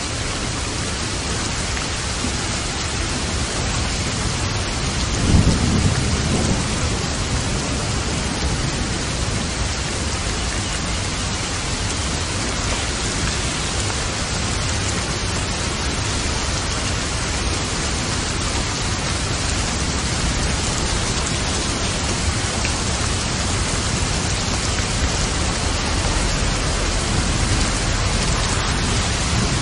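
Steady rain falling, with a low rumble of thunder swelling about five seconds in and another building near the end.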